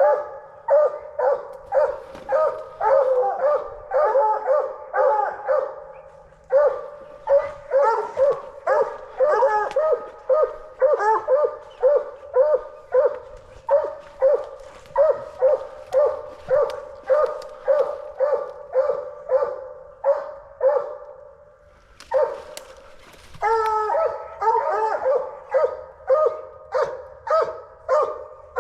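Coonhounds barking treed at a den tree, a steady rapid chop of about two barks a second, with a short break about three-quarters of the way through. The barks mark a raccoon run into a hollow tree.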